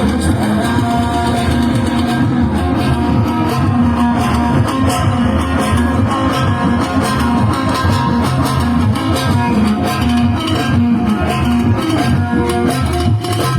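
Live band music with a plucked string lead line over a bass line and a steady pulsing beat.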